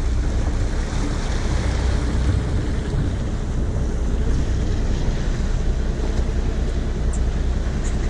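Fishing boat's engine running steadily as it motors slowly through a harbour, with water washing along the hull and some wind on the microphone.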